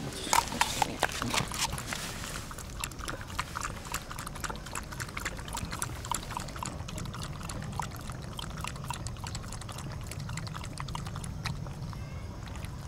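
A miniature schnauzer lapping water: a quick run of small wet clicks, louder and splashier in the first couple of seconds.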